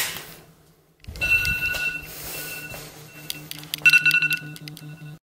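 iPhone alarm going off: a two-pitch electronic alarm tone sounding in bursts, with a low pulsing buzz under it.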